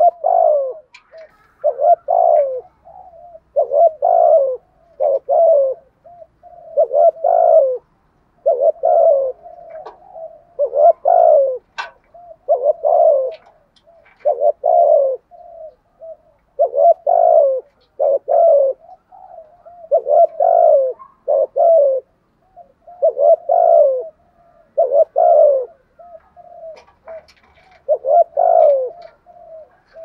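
Spotted dove cooing: a long run of deep coos, mostly one to two seconds apart, with softer linking notes between them and a short pause near the end.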